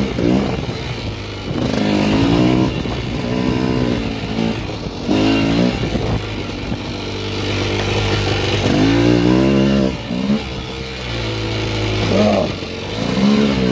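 Honda 250cc two-stroke enduro motorcycle riding off-road, its engine rising in pitch and dropping back several times as the throttle is opened and closed.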